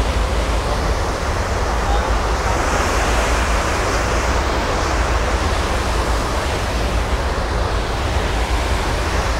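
Steady rushing of a ferry's churning propeller wash behind the stern, with wind buffeting the microphone in a low rumble.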